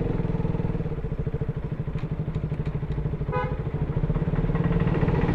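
KTM RC 200's single-cylinder engine running through the stock exhaust at low revs with an even, throbbing pulse, then picking up revs toward the end. A few faint ticks and a brief faint high tone come about midway.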